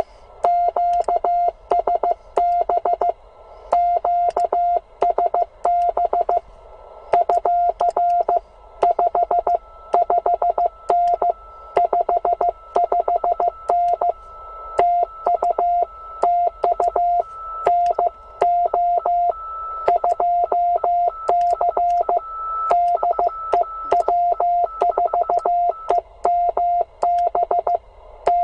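Morse code (CW) on an HF ham transceiver's speaker: a single beeping tone keyed in quick dots and dashes, with receiver hiss filling the gaps between characters and a fainter, higher second tone coming and going.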